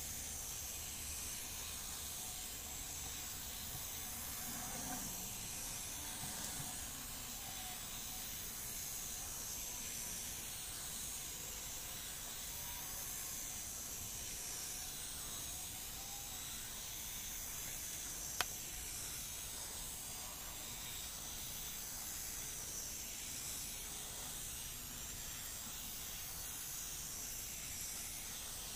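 Faint steady hiss, with a single sharp click about eighteen seconds in.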